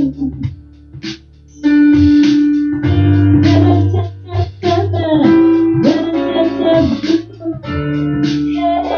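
Music: a song with instrumental backing, mainly guitar, that drops almost to nothing about a second in, then comes back with sustained chords.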